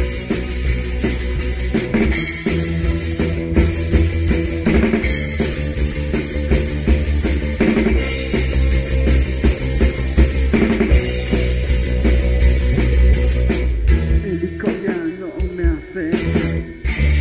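Punk rock recording in an instrumental stretch with no singing, driven by a full drum kit with kick and snare. About fourteen seconds in the low end drops away for a short break, and the full band comes back in near the end.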